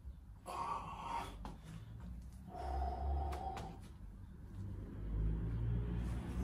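A man breathing heavily through the effort of an isometric quadriceps hold, with two long breaths out, about half a second and two and a half seconds in, over a low rumble.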